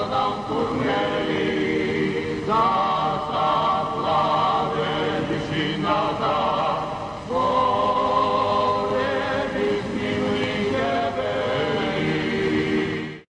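A choir sings a church chant in long held chords. New phrases begin about two and a half, six and seven seconds in.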